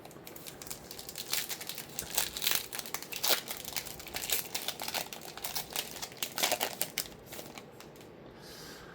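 Foil trading card pack wrapper being torn open and crinkled by hand: a dense run of irregular crackles that dies down near the end.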